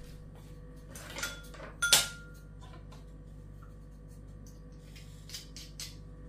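Metal kitchen utensils handled over a bowl: a few light clicks, then a single sharp metallic clank with a short ring about two seconds in, and two faint clicks near the end, as a metal garlic press is taken up and worked over a bowl of minced meat. A steady low hum runs underneath.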